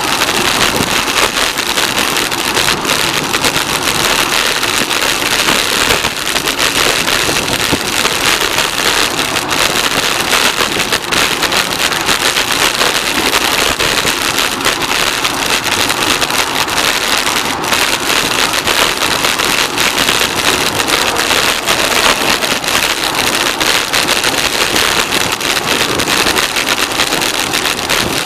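Steady, loud rushing hiss while riding a bicycle: air and tyre noise on the rider's camera microphone, with no break or change.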